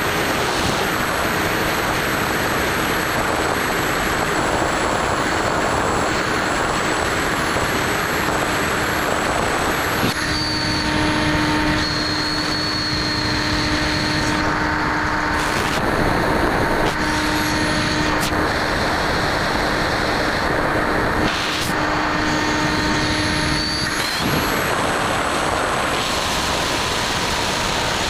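Steady rush of wind over the onboard camera of a Skyhunter FPV plane in flight, with the electric motor and pusher propeller humming. A steady motor tone comes in about a third of the way through and drops in and out before fading near the end.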